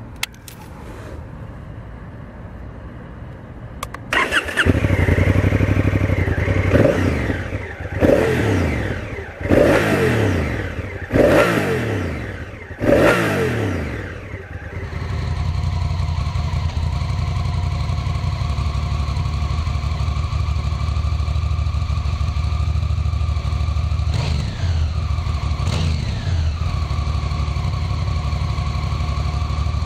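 Honda CRF1000L Africa Twin's 998 cc parallel-twin engine starting about four seconds in. It is revved in five quick throttle blips, each rising and falling, then settles into a steady idle.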